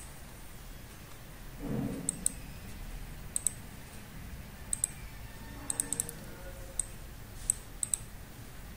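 Computer mouse clicking: about a dozen short, sharp clicks spread irregularly, some in quick pairs, while items are picked from a drop-down list on screen.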